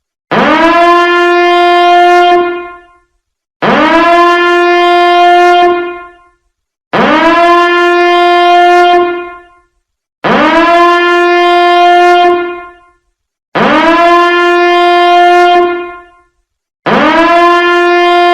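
Biohazard alarm sounding a repeated horn-like tone. Each blast swoops quickly up in pitch, holds steady for about two and a half seconds, then fades away, with a new blast starting about every three seconds.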